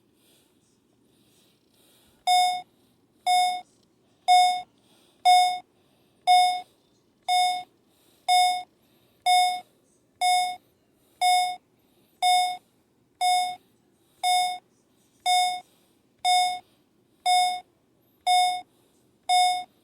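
Fire alarm sounding a pulsed tone: a steady-pitched beep about once a second, starting about two seconds in after a short pause.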